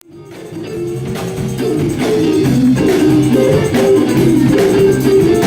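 Background music fading in out of silence: a melody played over a bass line.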